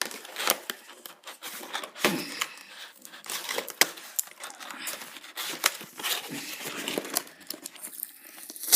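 Toy packaging being handled and pulled apart: crinkling and tearing with many sharp clicks and snaps, the loudest snap near the end.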